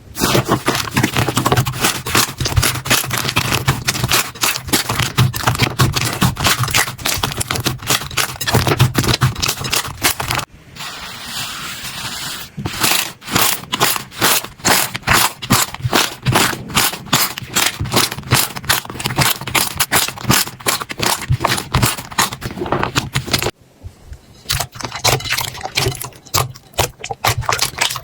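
Slime being squeezed, pressed and poked by hand, giving a fast run of wet crackling and popping clicks. About eleven seconds in it turns to a steadier, hiss-like squish for a second or two, then the rapid clicking comes back.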